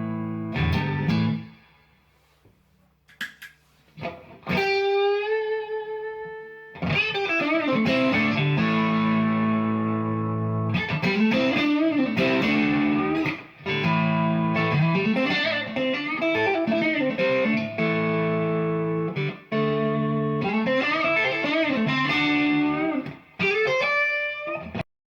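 Fender Stratocaster electric guitar played through a Victory V40 valve amplifier head: ringing chords and single-note phrases with string bends. There is a brief pause about two seconds in, and the playing cuts off just before the end.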